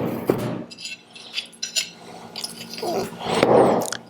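Metal clinks and taps as a Model T generator's terminal is bumped and worked loose, with a louder scrape about three seconds in.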